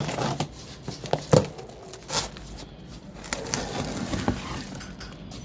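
Irregular clattering and rustling from hands-on installation work, with a few sharp knocks scattered through it; the loudest knock comes about a second and a half in.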